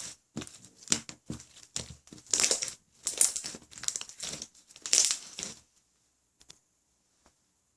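Pink clear jiggly slime being squeezed and worked by hand: a run of sticky, crackling squishes that stops about two-thirds of the way through.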